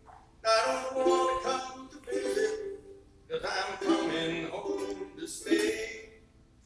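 Live band music: several short melodic phrases with brief pauses between them.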